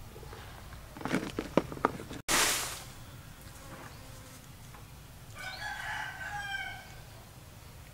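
A rooster crows once, about five and a half seconds in, over a steady low hum. Earlier there are a few sharp clicks, then a short loud noisy burst.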